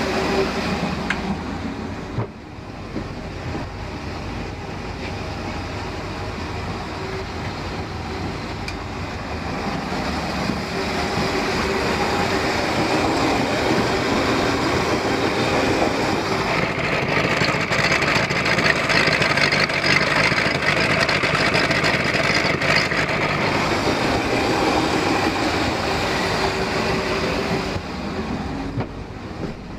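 Carbureted V8 inboard marine engine idling steadily while it warms up. It gets louder about a third of the way in and drops back near the end.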